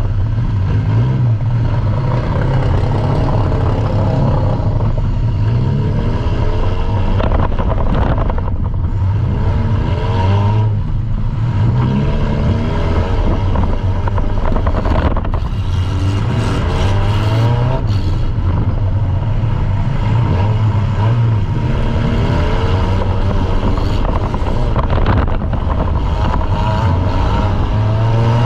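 Compact demolition derby car's engine running hard and revving up and down, heard from inside the car, with a few brief knocks and clatters.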